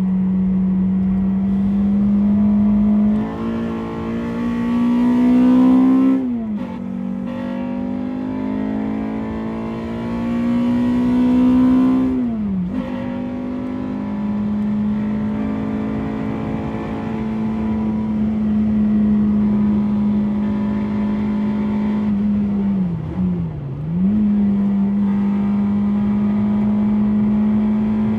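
Honda Civic EP3's K20A2 four-cylinder engine running hard at high revs, its pitch climbing under acceleration and dropping sharply twice, at about six and twelve seconds in. It then holds a steady high note, with a brief dip and recovery near the end.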